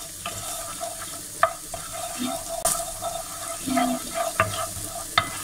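Minced garlic sizzling in olive oil in a nonstick frying pan, stirred with a wooden spatula that clicks against the pan a few times.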